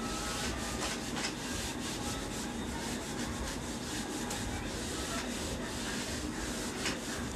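A handheld whiteboard duster rubbing across a whiteboard in repeated back-and-forth wiping strokes, erasing marker writing.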